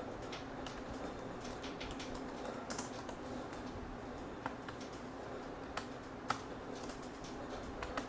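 Typing on a laptop keyboard: irregular, fairly quiet keystrokes, with a few sharper clicks among them.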